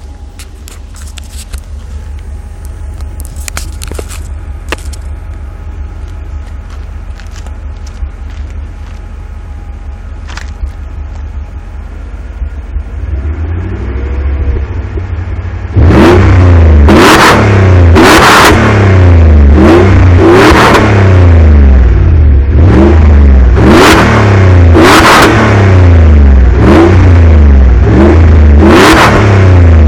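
Mercedes SL500 (R129) 5.0-litre V8 through an AMG exhaust, idling with a steady low burble, then blipped to higher revs from about halfway. The revs come as about ten loud, quick blips, roughly one a second, each rising in pitch and falling back.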